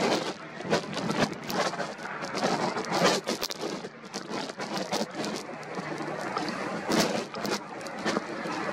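Strong wind on the camera's microphone: a rough, gusty rushing noise with frequent crackles and pops.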